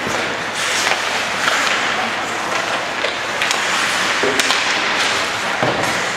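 Ice hockey in play: skates scraping the ice and a few sharp clacks of sticks hitting the puck, over a steady hiss of rink noise and faint voices.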